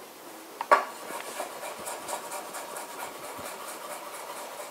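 Chef's knife finely chopping garlic on a wooden chopping board: quick, even taps of the blade on the wood, about five a second, with one louder knock a little under a second in.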